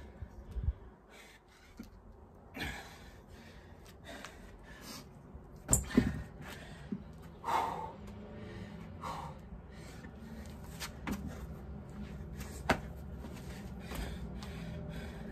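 Dumbbells set down with a couple of sharp metal knocks about six seconds in, amid hard breathing and exhaling from exertion after a set of dumbbell thrusters, with a few lighter knocks and scuffs around it.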